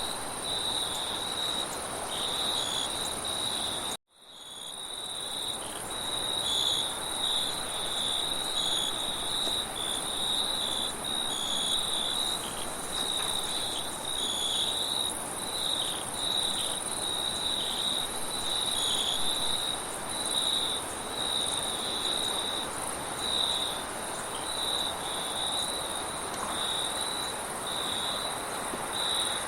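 Crickets chirping in rapid uneven pulses with a steady higher-pitched insect trill above them, over a soft wind hiss. About four seconds in the whole sound cuts out abruptly and fades back in over a second or two.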